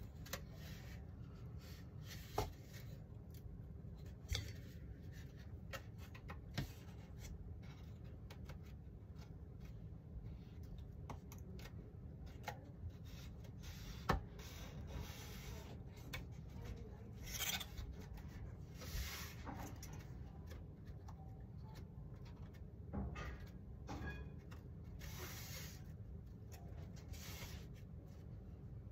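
Balsa wing parts being handled and pressed into place: a few sharp light clicks and taps, the loudest about halfway through, and short rubbing, scraping sounds in the second half, over a steady low hum.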